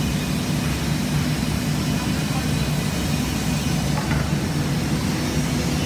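Industrial panel profile sanding machine running, a steady, even mechanical noise with a constant low hum.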